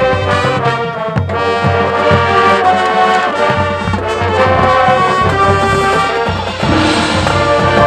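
Marching band playing a loud brass passage, trombones and trumpets holding chords that shift every second or so, over low drum hits.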